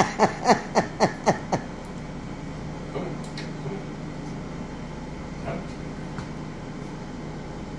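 A woman laughing in a quick run of short, falling notes, about four a second, stopping about a second and a half in. A steady low hum from a room appliance continues under it and afterwards.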